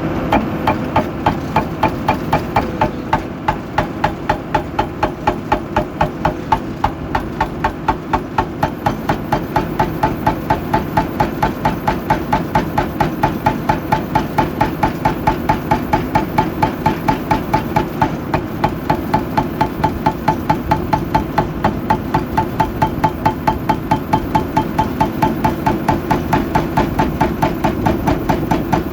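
Excavator at work: a steady heavy engine sound with a regular, loud knocking about three times a second.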